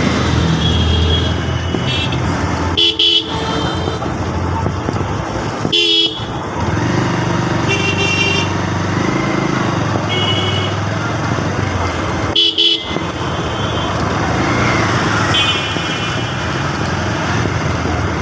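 Motorbike riding through street traffic: steady engine and road noise, with vehicle horns honking repeatedly in short toots of different pitches.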